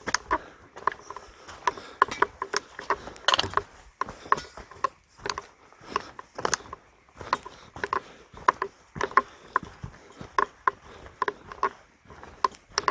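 A hiker walking a rocky forest trail: a string of irregular sharp clicks and scuffs from footsteps and gear, several a second.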